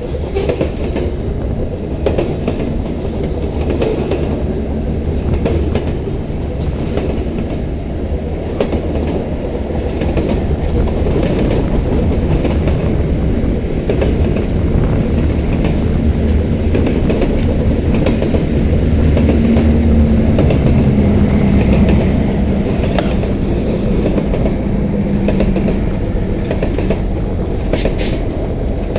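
Freight cars of a passing CN train rolling by, with a steady rumble and wheels clicking over the rail joints. A low steady tone comes in about two-thirds of the way through, and there is a sharp clank near the end.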